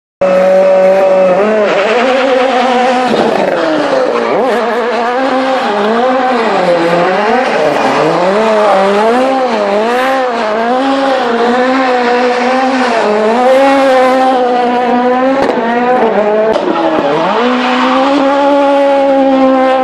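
Ford Fiesta RS WRC rally car's turbocharged four-cylinder engine revving up and down in quick waves, about once a second, while its tyres squeal in spinning donuts. The revs settle to a steadier note near the end.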